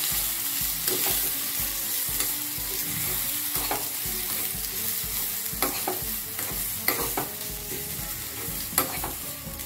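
A metal spoon stirring and scraping coconut chutney around a hot non-stick pan, with a few sharp clinks of the spoon against the pan over a steady light sizzle from the tempering.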